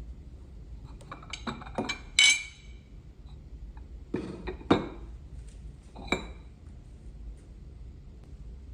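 Hard tableware clinking as it is handled and set down: a quick run of knocks about two seconds in, then two more single clinks, each with a short ring.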